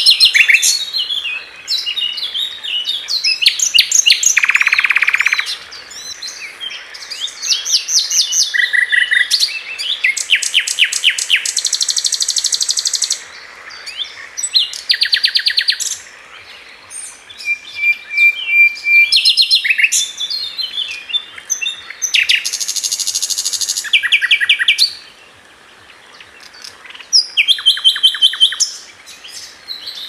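Common nightingale singing: a run of varied phrases with short pauses between them, made of fast repeated notes, trills, a harsh buzzy note and pure level whistles.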